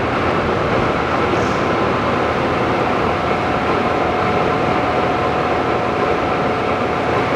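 Monarch Model 613 toolroom lathe, driven by its 20-horsepower main motor, running steadily under power with a constant mechanical drone. A faint, steady high whine comes in about three seconds in.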